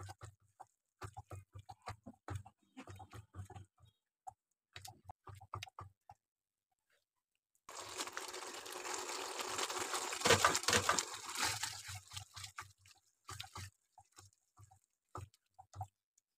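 Silicone spatula stirring thick, creamy chicken gravy in a nonstick pan, making short wet squelching strokes. About halfway through, a few seconds of steady sizzling and bubbling from the simmering gravy.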